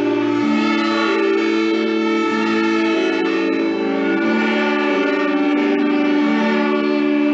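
A class of children playing violins together, bowing long held notes that move from pitch to pitch, with several notes sounding at once.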